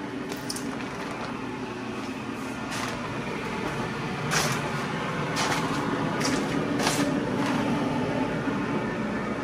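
A steady low mechanical hum, with about half a dozen short swishes or rustles over it.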